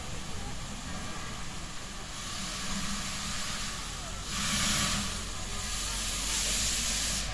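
Steam locomotive U 29.101 Krutwig hissing as it approaches, steam venting from its cylinder drain cocks with a low rumble underneath. The hiss swells about two seconds in, is loudest a little past the middle, and cuts off suddenly at the end.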